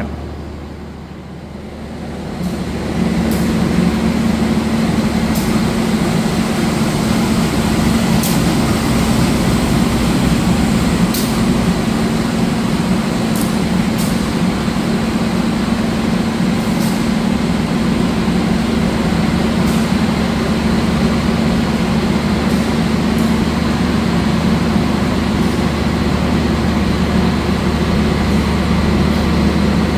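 Diesel locomotive engine running steadily at close range. The sound swells about three seconds in and then holds level, with a few faint clicks over it.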